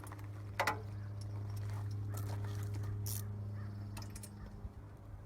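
A crow cawing outdoors over a steady low hum, with a sharp click about half a second in.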